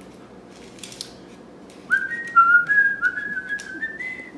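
A person whistling a tune, starting about two seconds in, a single clear line of short notes stepping up and down in pitch.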